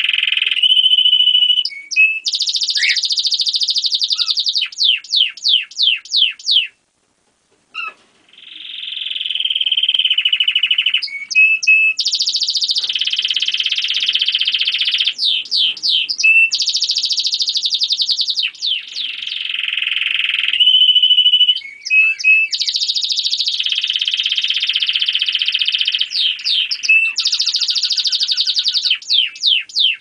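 A German crested canary singing a long song of fast rolling trills, broken up by quick runs of sweeping notes, with a brief pause about seven seconds in.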